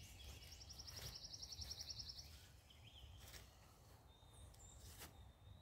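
Quiet outdoor ambience with a bird's fast, high trill lasting about two seconds near the start, and a few faint clicks.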